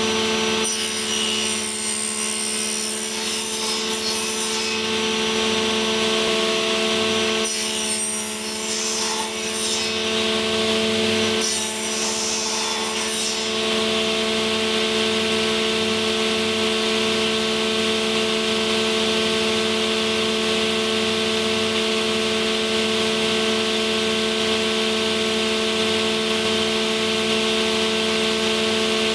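Circular saw of a UKM-300 woodworking machine running at a steady pitch. In the first half it makes three short cuts of a few seconds each into a board held in a tenon-cutting jig, heard as a rough rasp over the motor; after that the blade spins free with a steady hiss.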